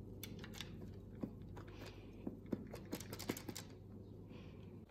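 Quiet, scattered clicks and light taps from a silicone spatula working sticky marshmallow into a tray lined with baking paper, over a faint low hum.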